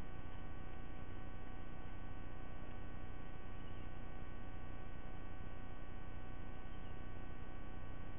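Steady electrical hum, several constant tones over a low rumble of noise, unchanging throughout.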